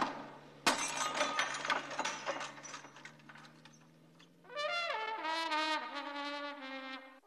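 A sharp knock under a second in, followed by a fading patter of small clicks. From a little past the middle, a trumpet plays a short phrase of notes that slide up and then step down.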